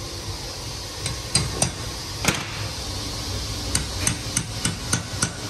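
About ten light, irregular metallic taps with a short ringing, from valve stem seals being tapped down onto the valve guides of an aluminium cylinder head with an installer drift.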